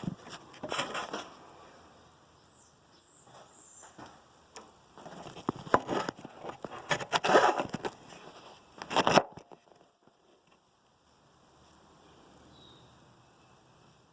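Irregular clicks, knocks and rustling, loudest between about five and nine seconds in, then cutting off abruptly to a faint hiss.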